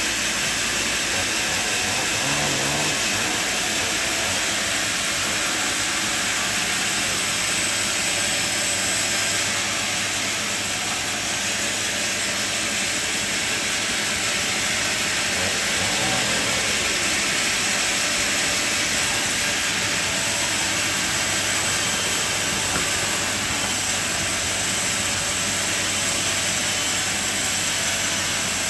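Sawmill running: a steady engine-driven mechanical noise with a strong high hiss, unchanging throughout.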